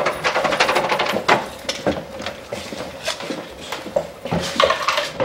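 Irregular clattering and knocking of objects being handled and moved about while rummaging through a cluttered storage room, with a few sharper knocks.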